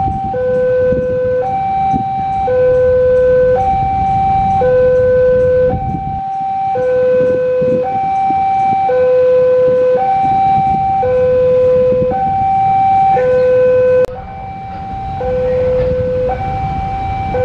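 Railway level-crossing warning alarm sounding its two-tone signal, a low and a high tone alternating about once a second, warning that a train is approaching. A low rumble runs underneath, and a sharp click comes about two thirds of the way through, after which the sound is a little quieter.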